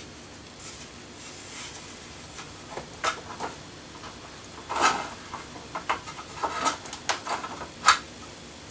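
Light clicks and taps of small hard objects being handled and set down, starting about three seconds in and coming irregularly, with the sharpest click near the end.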